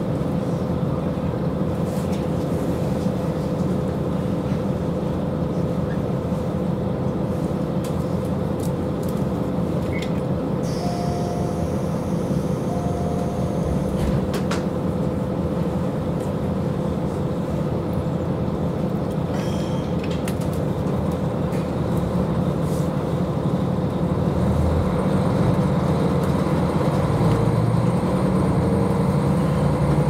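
KiHa 40 diesel railcar's engine idling steadily, heard from inside the cabin, with two short beeps near the middle. Toward the end the engine grows louder and rises in pitch as the railcar begins to pull away.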